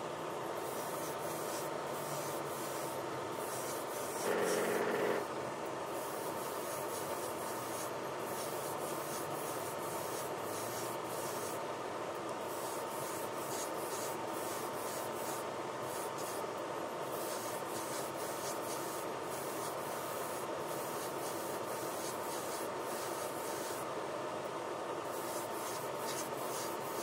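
Airbrush spraying paint: a steady hiss with a faint constant tone under it, briefly louder for about a second about four seconds in.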